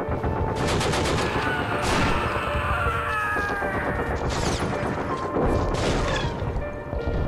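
Dense gunfire sound effects: volleys of many close-spaced shots over a low rumble, with a few falling whistle-like tones between about one and four seconds in.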